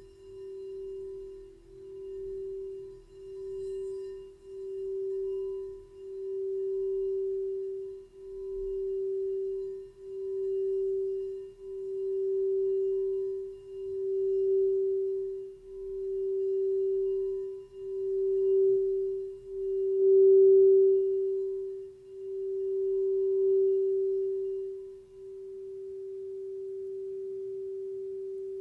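Frosted crystal singing bowl sung by circling a wand around its rim: a single pure, steady tone that swells and dips about once every two seconds and builds louder. About 25 seconds in the swells stop and the tone rings on smoothly.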